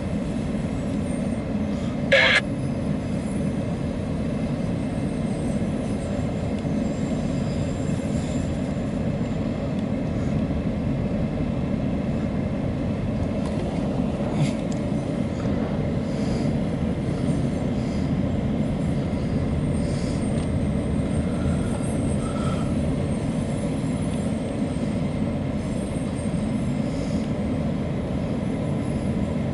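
Empty autorack freight cars rolling past with a steady low rumble of steel wheels on rail. A brief high wheel squeal sounds about two seconds in.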